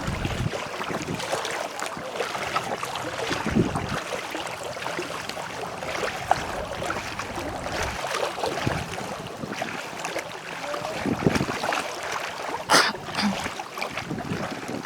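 Steady outdoor wind and water noise, with a few dull knocks and one sharp click near the end.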